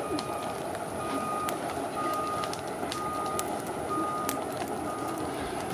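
Reversing alarm beeping steadily, one half-second beep about every second, over a steady rushing background noise.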